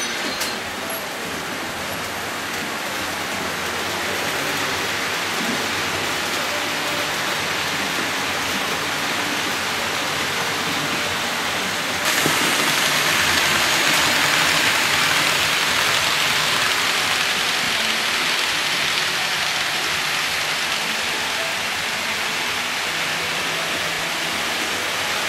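Model electric locomotive and its freight wagons rolling along metal track, a steady rushing hiss that gets louder about halfway through as the train nears.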